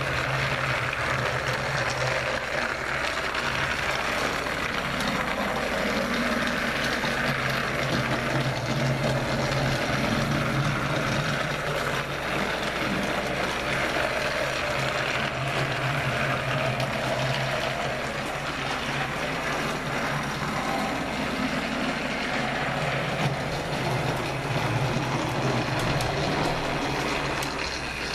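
Battery-powered TrackMaster Royal Spencer toy train running on plastic track: the steady whirr of its small electric motor and gears, with the wheels and cars clattering along the rails, growing louder and fainter in turn.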